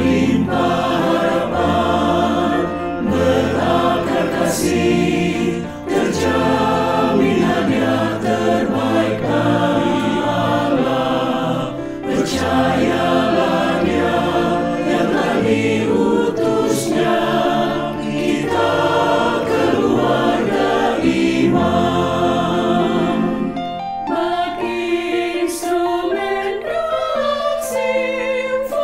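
Mixed choir singing a hymn in harmony with piano accompaniment. About 24 seconds in the low parts drop away and women's voices carry on alone.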